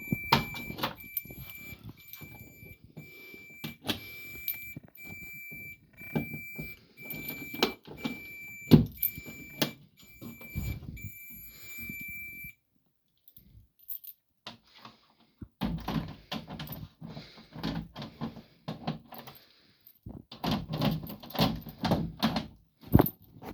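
Fire alarm sounder on a Gent Vigilon system going off during a test: a high steady tone broken into roughly one-second pulses, which cuts off abruptly about halfway through. Clicks, knocks and rattles of handling run alongside it and carry on after it stops.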